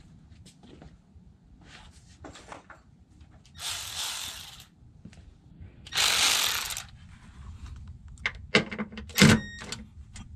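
Two hissing bursts of about a second each, then a run of sharp metallic clinks and clanks of tools on metal, one of them ringing briefly near the end.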